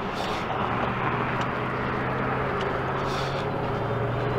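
Street traffic: an even rush of passing cars, with a vehicle engine's steady hum coming in about a second in and holding.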